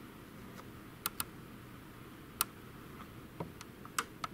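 Scattered small, sharp plastic clicks and taps, about seven spread unevenly over four seconds, from hands handling the wire connectors and ribbon cables on an inkjet printer's main board.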